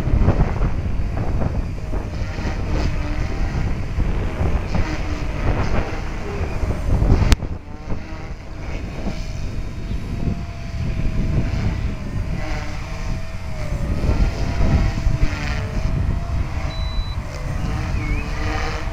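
Gusty wind buffeting the microphone, with the whine of a flybarless Align T-Rex 250 electric RC helicopter wavering up and down in pitch as it flies. A single sharp click about seven seconds in.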